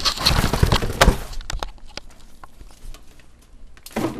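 A motherboard's cardboard box and packing being handled and pulled apart: loud rustling and scraping for about the first second, a sharp knock just after, then quieter handling.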